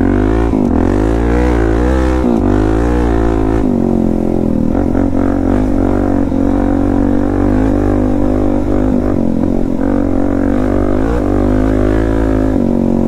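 Suzuki DR-Z400S's single-cylinder four-stroke engine, fitted with a slip-on exhaust, being ridden off-road, its revs rising and falling continually with the throttle.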